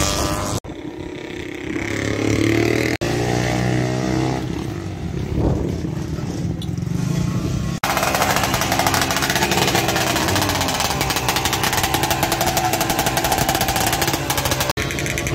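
Vintage racing motorcycle engines running and revving, heard in short shots that cut off abruptly several times. From about eight seconds in, one engine runs steadily with a rapid, even firing.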